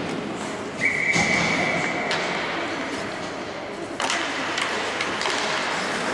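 Ice hockey rink sounds: voices with scattered knocks of sticks and skates, and a single held whistle blast lasting about a second near the start. About four seconds in, sharper clatter of sticks and skates on the ice as play resumes from a faceoff.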